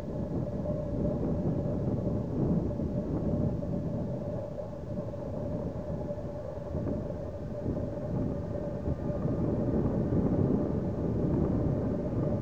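Long freight train of log-loaded wagons rolling past: a steady noise of wheels on rails, with a thin steady whine running through it.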